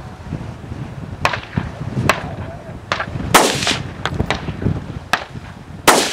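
Gunshots fired one at a time at distant targets, about six in all at uneven spacing, the loudest about halfway through with a long echo after it and another loud one near the end.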